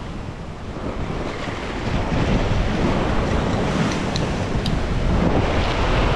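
Ocean swell surging and breaking against a rock ledge, the wash building over the first couple of seconds and then staying loud, with wind buffeting the microphone.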